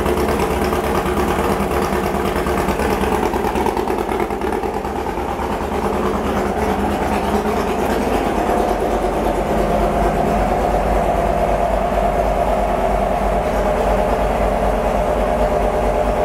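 Newly built 2332cc air-cooled VW flat-four with twin 48 IDA Weber carburettors and an open header exhaust, idling on one of its first runs. Its idle rises slightly and grows a little louder about halfway through, then holds steady.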